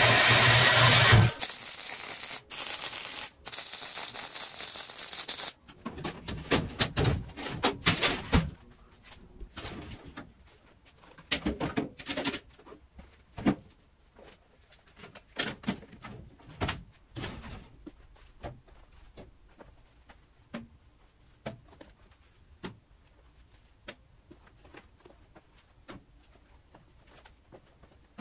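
Portable band saw running and cutting through steel angle iron, with a short break at about a second in, and stopping at about five and a half seconds. Then a run of irregular metal knocks and rattles as a steel filing-cabinet drawer is pulled out and handled, thinning to a few faint clicks.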